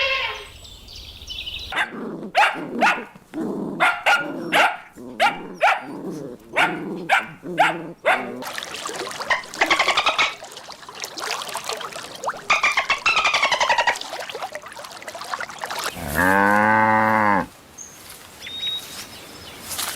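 A dog barking about a dozen times in quick succession, followed by rougher animal calls. Near the end a cow gives one long, low moo.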